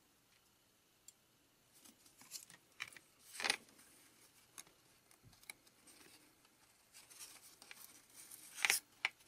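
1982 Donruss cardboard baseball cards handled and shuffled: the cards slide and flick against the stack in a few short rustling swipes, the loudest about three and a half seconds in and again near the end.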